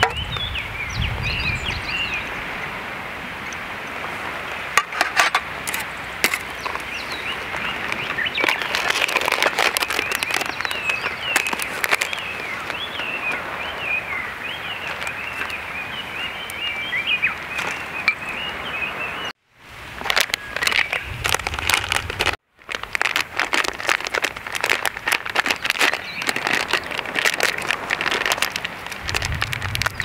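Outdoor ambience: a steady rush with many small birds chirping high and busily, and scattered sharp clicks and crackles of handling. The sound drops out briefly twice past the middle.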